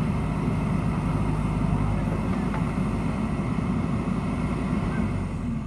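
JCB backhoe loader's diesel engine running steadily at working revs while the backhoe arm and bucket are raised and curled.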